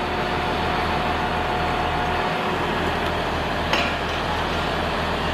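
Steady machine noise with a low, pulsing hum. A faint steady tone fades out about halfway through, and a single sharp click comes about three and a half seconds in.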